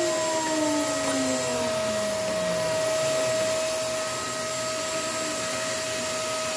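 CNC router spindle winding down after a cut: a falling whine that fades out over the first two seconds, over a steady machine drone holding a constant tone.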